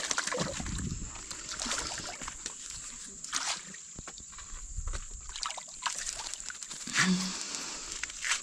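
Shallow water splashing and sloshing at a rocky bank as a trout is landed in a landing net, in irregular splashes and knocks, over a steady high-pitched whine.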